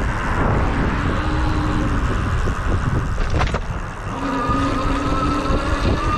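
Wind and road rumble from a RadRunner e-bike on the move, with a short rattle just past three seconds. From about four seconds in, a faint whine slowly rises in pitch.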